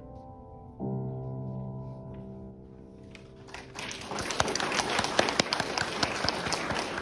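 Grand piano playing a final chord that rings and dies away. About three and a half seconds in, audience clapping starts and builds into steady applause, the loudest sound here.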